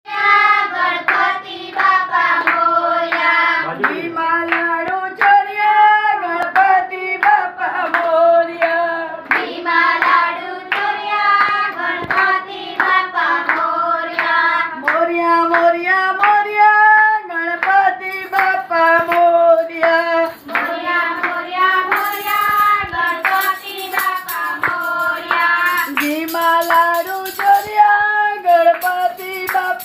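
Group of voices singing a devotional song with steady hand claps keeping time.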